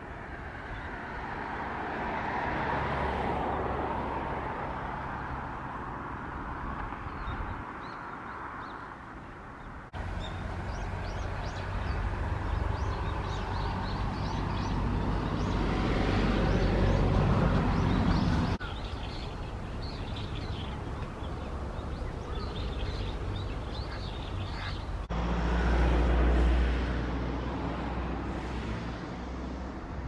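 Outdoor ambience: a steady low rumble like distant road traffic, with faint small-bird chirps. The background changes abruptly several times where the footage is cut.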